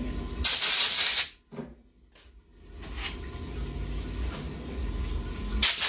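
Two short blasts of pressurized air, each hissing for about a second and cutting off sharply, the first near the start and the second near the end; a faint low hum between them.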